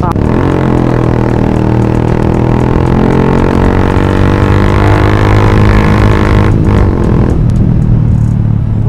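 Yamaha FZ motorcycle's single-cylinder engine, running loud through an aftermarket replica Akrapovic exhaust and pulling steadily under acceleration, the pitch slowly rising. About six and a half seconds in the throttle briefly closes, and it eases off after that.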